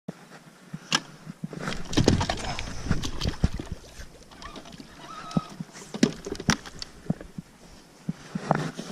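Irregular clicks and knocks of gear being handled in a fishing boat, some sharp and loud, over a faint background of water and outdoor noise.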